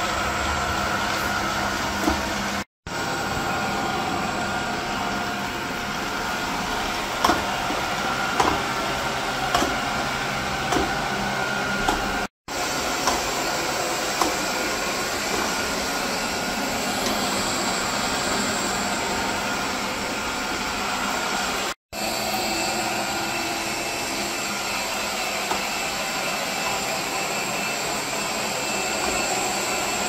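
Xiaomi Robot Vacuum E10 running on a tiled floor, its suction fan and brushes making a steady whir. It is heard in back-to-back clips at rising suction settings, from Silent through Medium to Turbo. The sound drops out briefly at each of three cuts, a high whine grows stronger in the later, higher settings, and a few light clicks come in the middle.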